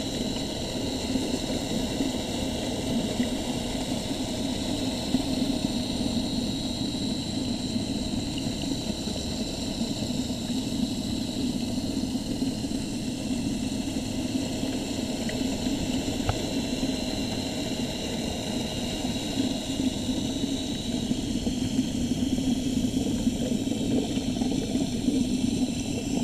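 Steady hum of a water pump or aerator running in a herring holding tank, with a constant rush of moving water; it holds unchanged throughout.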